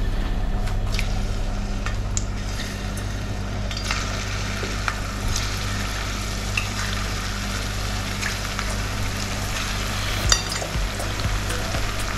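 Rounds of green plantain frying in oil in a stainless steel skillet: a steady sizzle with scattered small pops and crackles, one louder about ten seconds in. This is the first fry of green plantain for press plantain.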